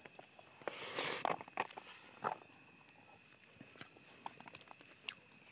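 Faint eating sounds: scattered soft smacks and clicks of chewing, and of a hand working rice and meat on a banana leaf, with a brief louder rustle about a second in.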